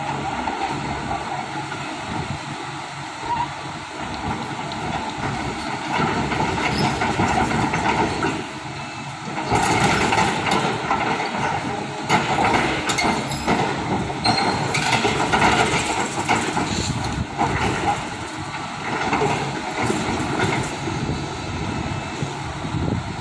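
Heavy machinery running, with a continuous metallic clattering and rattling that grows louder about ten seconds in.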